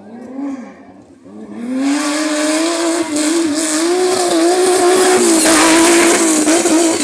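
Off-road race buggy engine running hard at high revs as the vehicle races past close by. It starts quieter, swells about a second and a half in, then holds loud with the pitch wavering up and down as the throttle changes. It is loudest near the end.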